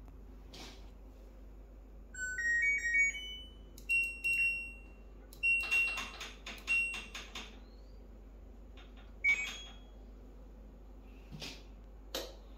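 LG front-loading washer's control panel playing its short rising power-on melody, then a series of single high beeps, with clicks from the program dial as it is turned. The washer is powering up again after its blown fuse and power filter were replaced.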